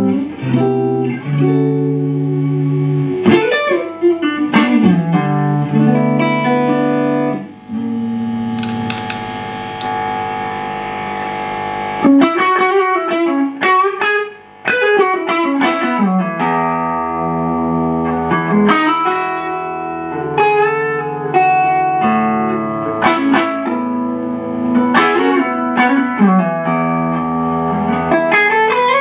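Macmull Stinger electric guitar played through a Strymon OB.1 optical compressor, its compressor engaged, into a Marshall JCM2000 DSL amp: a picked lead line of single notes and chord stabs with several string bends and a long sustained passage in the middle.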